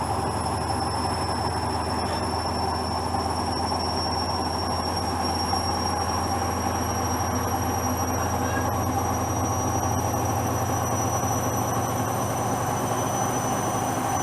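Hoover washing machine on a spin, working up toward 800 rpm: a steady low drum hum under a high motor whine that slowly rises in pitch.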